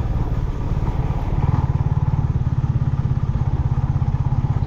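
Yamaha MT-15 single-cylinder motorcycle engine running with a low, rapid, even throb, which grows a little stronger and steadier about a second and a half in.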